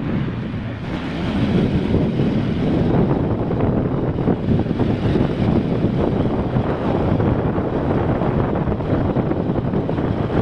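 Wind buffeting the microphone on a moving motorcycle, a steady loud rush, with the motorcycle's engine and road noise underneath.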